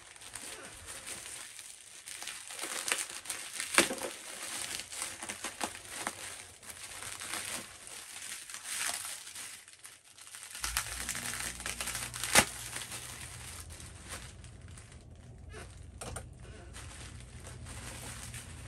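Plastic packing material crinkling and rustling as a shipping box is unpacked by hand, with two sharp snaps, one about four seconds in and one about twelve seconds in.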